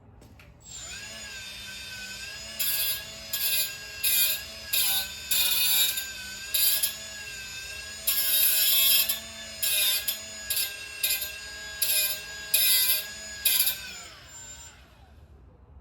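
A handheld power cutting tool cutting a sheet-material body panel piece. Its motor spins up about a second in and runs with a steady whine, broken by about a dozen short, louder bursts of cutting as it bites the material, one of them longer. It winds down with falling pitch near the end.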